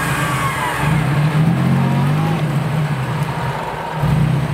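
Off-road 4x4's engine running under load and revving, its pitch rising and falling, easing off briefly and picking up again near the end.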